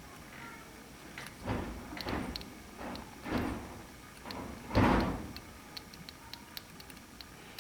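Handling noises while working on the car: several short scraping, rustling thumps, the loudest about five seconds in, followed by a scatter of light clicks.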